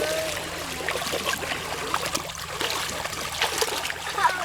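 Shallow river stream flowing and trickling, with many small splashes scattered through it.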